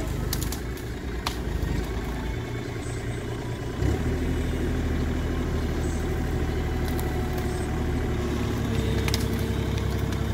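New Holland E27 mini excavator's diesel engine running steadily as the arm digs; about four seconds in the engine note steps up and holds at a higher, steadier level.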